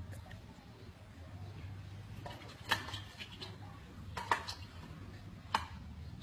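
Plates being knocked and clacked together in a plate-swatting game: a few sharp taps, the loudest about two and a half, four and five and a half seconds in.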